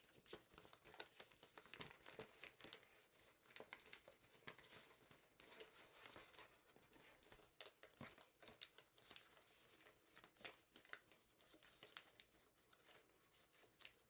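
Faint, irregular crinkling and crackling of a sheet of origami paper being folded and pressed by hand.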